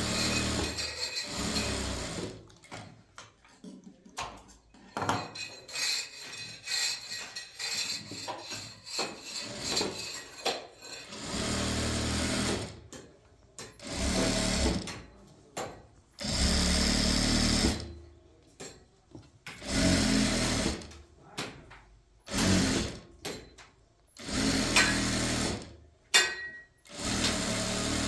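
A small motorised machine running in repeated bursts of one to two seconds, stopping briefly between them.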